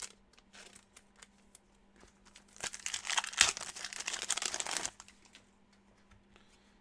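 Wrapper of a basketball trading-card pack crinkling as it is torn open and handled, a dense crackle lasting about two seconds in the middle, with a few light ticks of card handling before it.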